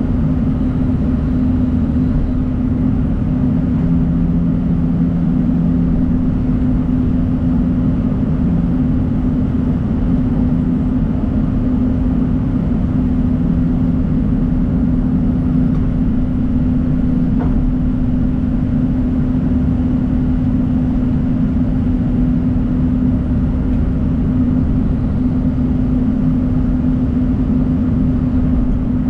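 Diesel engine of a John Deere 250G excavator running at a steady speed.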